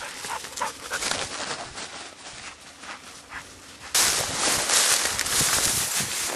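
A dog whining and panting faintly over rustling for the first few seconds. About four seconds in, a loud, even rushing noise starts suddenly and carries on.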